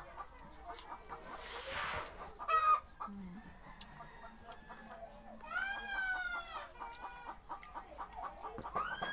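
A rooster crowing twice, one long call about five and a half seconds in and another starting near the end, with chickens clucking in between. A short burst of hiss comes about a second and a half in, and a brief loud sound about two and a half seconds in.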